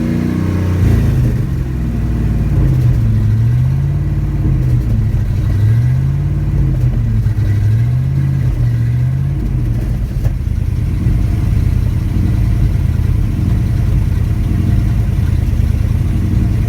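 1987 Chevrolet Silverado K10's 350 V8 idling roughly and hunting: the engine speed rises and falls on its own every second or two for about ten seconds, then runs steadier. The owner does not know what causes the surging.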